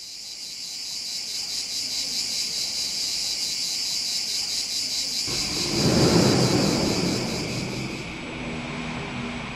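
Insects chirring in a steady high-pitched drone. About five seconds in, a low rumble from something passing swells, loudest around six seconds, and fades.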